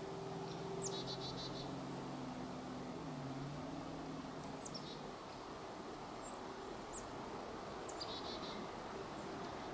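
Small birds calling: quick high down-slurred chirps and a couple of short trills, about a second in and again near the end. Under them runs a faint low hum from the distant approaching EMD GP38 diesel locomotive, which dips in pitch briefly about three seconds in.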